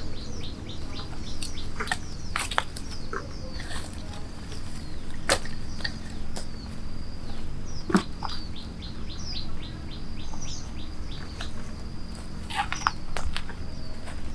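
Outdoor ambience of birds chirping in quick runs of short repeated notes over a steady high insect drone, with a few sharp clicks, the loudest about eight seconds in.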